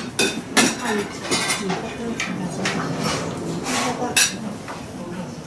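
Clinking and clattering of hard objects being handled on a table, a string of irregular sharp knocks and clinks, with voices chatting quietly in the background.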